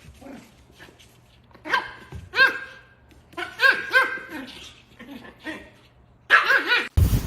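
A dog barking: about half a dozen short, high calls spread over the clip, each rising and falling in pitch. Near the end a sudden loud steady hiss cuts in.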